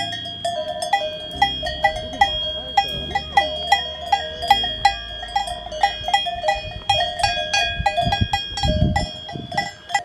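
Cowbells on grazing cattle clanking and ringing irregularly, about three strikes a second, with more than one bell at slightly different pitches.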